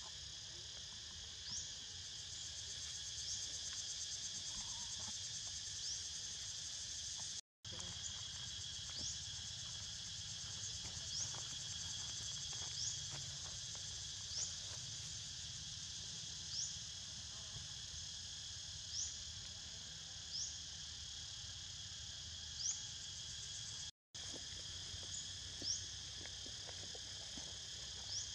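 Steady high-pitched insect chorus droning without a break, with a short rising chirp repeating about every second and a half. The sound cuts out completely for a moment twice.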